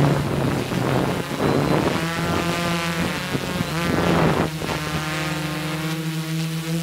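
Multirotor copter's electric motors and propellers humming, heard from the camera on board, with the pitch wavering as the copter is panned and tilted fast. Wind rushes over the microphone throughout.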